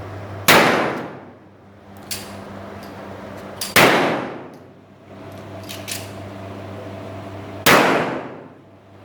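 Three revolver shots from a Smith & Wesson Model 29, fired slowly about three to four seconds apart. Each shot has a ringing echo that dies away in about a second, and lighter clicks fall between the shots.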